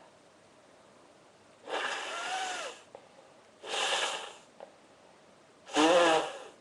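A person sneezing three times, about two seconds apart, the last the loudest and most voiced, with a head cold (runny eyes, dripping nose).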